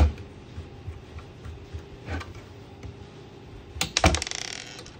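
Screwdriver and small screws clicking and knocking on a DVR's metal case as a hard disk is screwed in. There is a knock at the start and a few light clicks, then about four seconds in a clatter and a quick run of ticks as a small screw drops and bounces on the tabletop.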